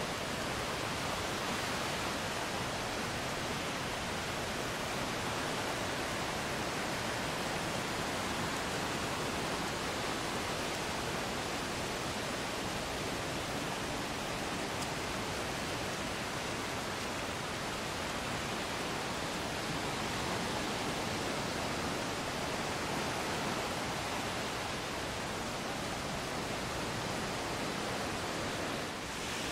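Ocean surf breaking and washing up the sand, heard as a steady rushing that eases a little near the end.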